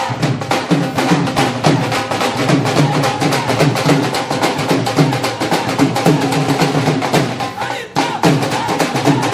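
Background music with a busy, driving percussion beat, dropping out for a moment about eight seconds in.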